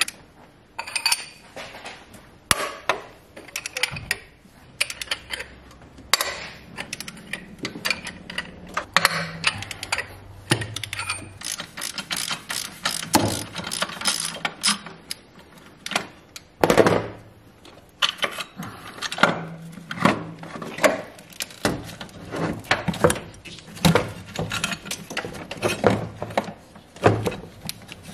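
Socket ratchet clicking in quick runs as the alternator mounting bolts are undone, among scattered knocks and clinks of metal tools and parts.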